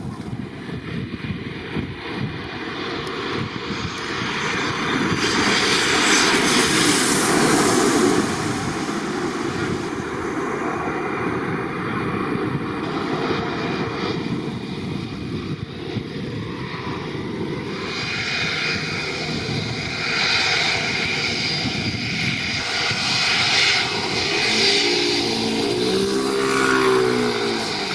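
Twin-engine jet airliners at close range: a takeoff roar that swells to its loudest about six to eight seconds in, then the steady noise of jets landing and taxiing. Near the end a wavering engine whine comes from an Airbus A320-family jet taxiing past.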